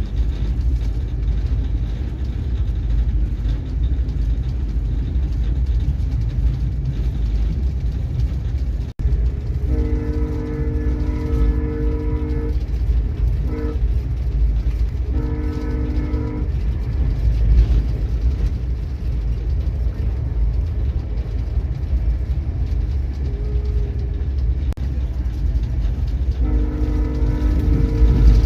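VIA Rail passenger locomotive's air horn sounding a chord in separate blasts over a steady low rumble: a long blast, a very short one, one of about a second, and after a pause another long blast near the end.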